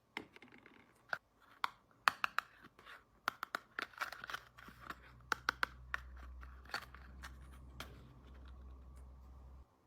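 Small plastic toy kitchen pieces being handled: a run of light clicks and taps with some scraping and rustling. A low rumble sits underneath from about four seconds in and cuts off suddenly near the end.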